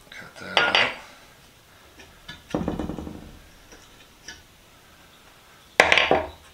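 Hand tools and small metal parts knocking and clattering on a workbench. There is a rattle about half a second in, a lower rattling clatter around three seconds, and a sharp knock with a brief ring near the end as a wooden-handled tool is set down.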